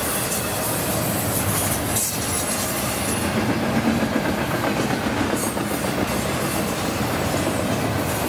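Double-stack intermodal container train rolling past on its well cars: a steady, dense rumble and clatter of steel wheels on the rails. Brief high-pitched wheel squeals come as the train rounds the curve.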